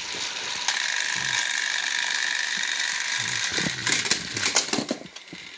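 Battery-powered Thomas & Friends toy engines' motors whirring steadily as their wheels rattle along plastic track, with several clattering knocks near the end.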